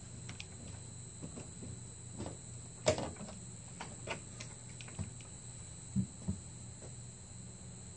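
Bally Eight Ball Deluxe pinball machine standing powered while it is rebooted: a few scattered light clicks and one sharper click about three seconds in, over a steady low hum and a steady high whine.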